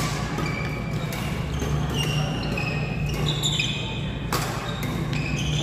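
Badminton rally: a loud, sharp crack of a racket striking the shuttlecock about four seconds in, amid short high squeaks of court shoes on the floor. A steady low hum runs underneath.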